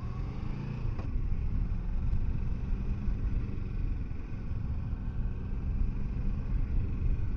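Kawasaki Versys 650 parallel-twin engine and wind rumble while riding in traffic, getting louder as the bike picks up speed in the first couple of seconds and then holding steady. A short click sounds about a second in.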